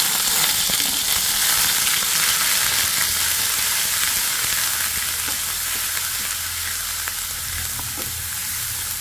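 Wet onion paste sizzling hard in hot mustard oil with cumin seeds in a kadhai, stirred with a wooden spatula; the sizzle eases off slowly.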